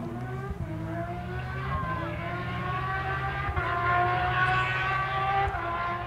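Porsche 997 GT3 rally car's flat-six engine under hard throttle, its pitch climbing and stepping at gear changes.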